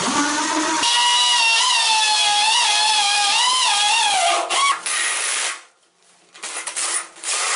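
Corded electric drill boring into floor tile: a high whine that wavers in pitch as the bit bites. It stops about five and a half seconds in, then comes back in short bursts near the end.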